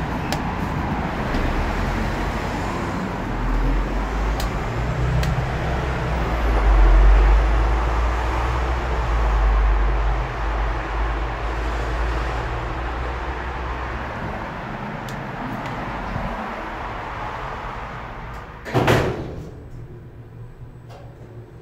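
Street traffic noise with a deep rumble comes in through the open elevator doors. About 19 seconds in, the elevator's sliding car doors shut with a short, loud thud, and the outside noise falls away.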